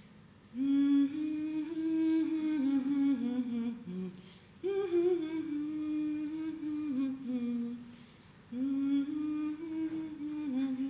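A woman humming a slow, unaccompanied tune in three phrases, each sinking in pitch at its end. The phrases begin about half a second in, near five seconds, and past eight seconds.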